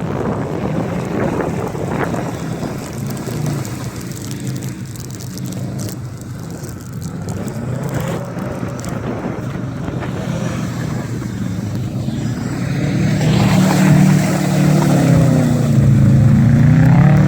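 Subaru flat-four engine being driven hard in snow, its note rising and falling as it revs, growing louder from about thirteen seconds in, with wind on the microphone.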